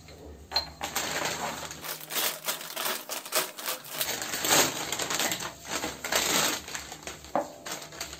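Plastic packet crinkling and crackling as it is handled and opened, a dense run of sharp crackles starting about half a second in.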